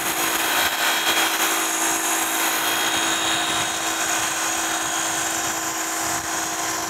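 DeWalt DCPW550 cordless 550 PSI power cleaner's motor and pump running steadily, with a constant hum under the hiss of foam spraying from a foam cannon fitted to it. It cuts off suddenly right at the end as the spraying stops.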